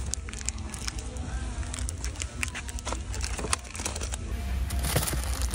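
Crinkling, rustling handling noise with many scattered clicks over a steady low rumble, as of the packaging around a bare-root tree being handled close to the microphone.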